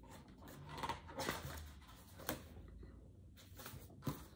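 Pages of a paperback rulebook being turned by hand: soft paper rustling with a few short, sharper flicks.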